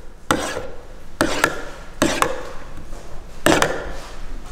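Metal spoon stirring garlic into a tomato sauce in a ceramic dish, with short scrapes and clinks against the dish about once a second.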